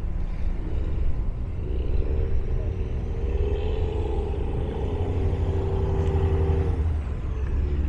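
Heavy engines running with a deep, steady rumble. A higher engine note swells in about two seconds in, holds, then drops away near the end.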